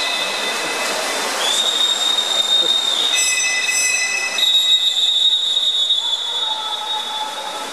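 High-pitched whistles blown in long, held blasts in a reverberant pool hall, several pitches overlapping at times. A new blast starts about a second and a half in and another about four and a half seconds in, over a steady noisy din of the hall.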